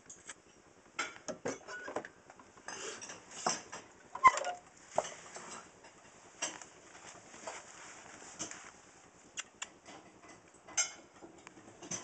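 Rustling and scattered clicks of handling, with a sharp metallic click about four seconds in as a door is unlatched and opened.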